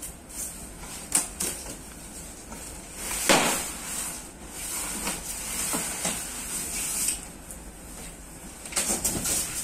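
A large corrugated cardboard box being lifted up and off packed gym equipment: cardboard scraping and rubbing against styrofoam packing, with a few knocks and rustles and a louder scrape about three seconds in.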